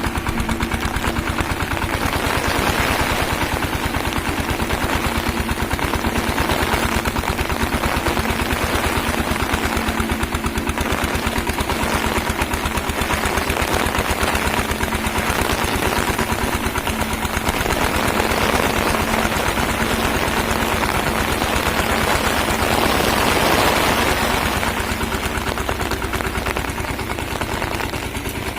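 Single-cylinder diesel engine of a VST Shakti power tiller running steadily, its exhaust beating in a rapid, even chug, a little louder about 23 seconds in.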